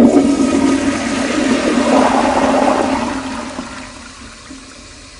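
Rushing, swirling water that starts suddenly, is loudest about two seconds in, then fades away.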